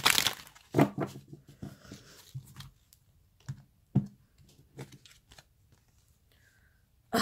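A deck of oracle cards handled by hand: a short rustle of shuffling cards, then a series of light clicks and taps as the deck is split and the card edges knock together and against the table, going quiet for the last couple of seconds.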